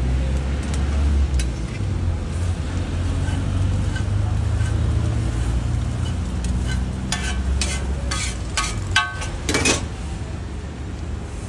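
Two metal spatulas chopping and scraping egg-coated bread on a flat iron griddle: scattered clicks and scrapes, then a quick run of sharp ringing clanks about seven to ten seconds in as the pieces are gathered. A steady low rumble runs underneath.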